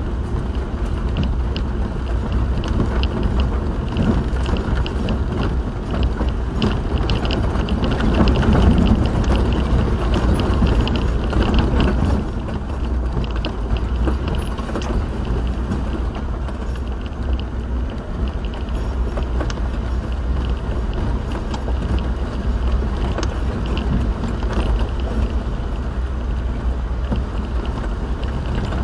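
Car driving, heard from inside the cabin: steady low engine and road rumble with light clicks and rattles, swelling a little about nine seconds in.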